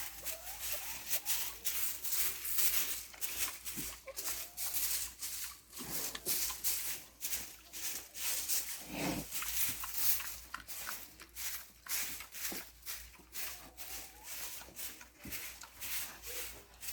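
Brisk scratchy sweeping strokes, two or three a second, working IMO-treated sawdust across a pig pen floor, with an occasional short pig grunt.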